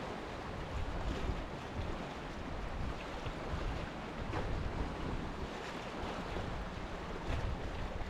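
Small sea waves lapping at high tide, with wind buffeting the microphone as a low rumble.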